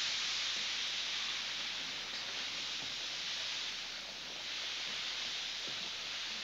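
Water spraying steadily from a garden hose nozzle, a continuous hiss that starts suddenly and keeps going.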